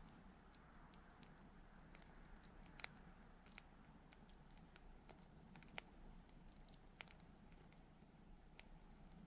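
Campfire burning, wood crackling and popping in sharp, irregular snaps over a faint low hiss of the flames.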